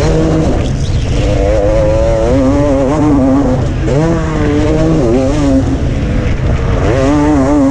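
Motocross bike engine heard from the rider's helmet camera, revving up and dropping back several times under hard acceleration, over a heavy low rush of wind and engine noise.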